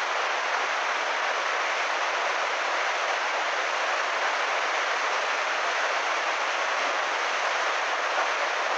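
Muddy floodwater torrent rushing steadily, an even noise that never breaks.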